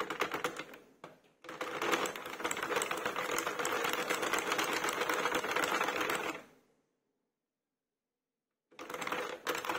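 Hand-cranked plastic circular knitting machine being turned, a fast, dense clicking clatter as the needles run round the cam track. The clatter breaks off for about two seconds near the end and then starts again.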